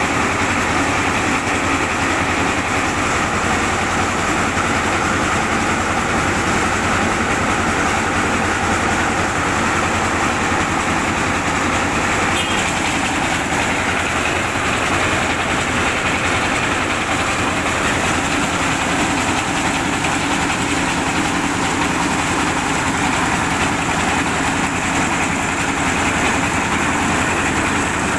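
Vehicle-mounted rice mill running steadily under load: the drive engine's hum with a dense, even rushing noise of grain going through the mill.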